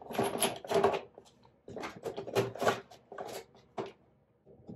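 Makeup items and their containers being handled and rummaged through: a string of short rustles and light knocks in several bunches, with brief pauses between.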